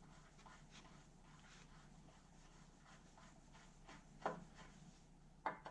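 Faint rubbing and small clicks of a small hand tool being worked against a bandsaw's metal table at the blade slot, with two sharper clicks a little after four seconds and near the end.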